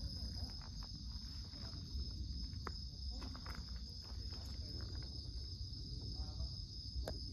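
Crickets trilling in a steady, high-pitched night chorus over a low rumble, with a few sharp clicks.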